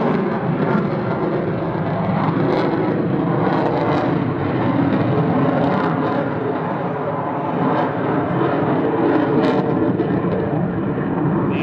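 Lockheed Martin F-22 Raptor's twin Pratt & Whitney F119 turbofan engines making a steady, loud jet rumble as the fighter flies display manoeuvres.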